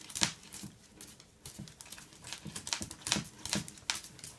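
A small dog's claws clicking and scraping on a tile floor in irregular taps as its legs paddle during a seizure.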